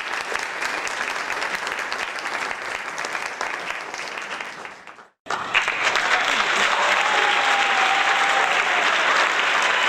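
Crowd applause that fades out about five seconds in, a moment of silence, then a second, louder round of crowd applause that starts abruptly.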